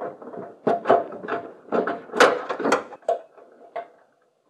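Hands fitting car parts into place: a run of irregular clicks, knocks and scrapes, the sharpest about halfway through.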